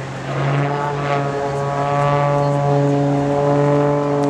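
Piston engine and propeller of an aerobatic monoplane droning steadily with a clear, even pitch as the plane dives, getting a little louder about half a second in.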